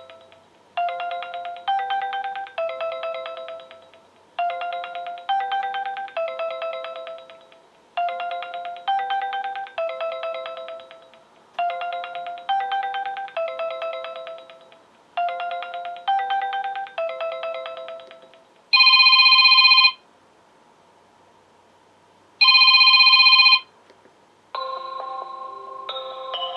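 Sonim XP6 ringtones. First comes a short four-note melody that loops about every 3.6 seconds, five times over. Then a loud electronic beep about a second long sounds twice, a few seconds apart, and near the end a different melodic ringtone begins.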